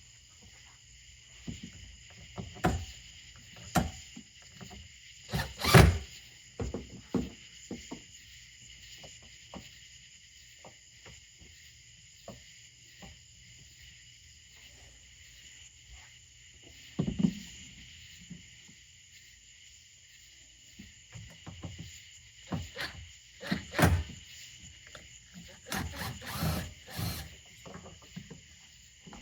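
Scattered knocks and clatter of hand work on a boat's fuel tank while a new fuel sending unit and gasket are fitted, the loudest knock about six seconds in, with more around the middle and near the end. Insects chirr steadily throughout.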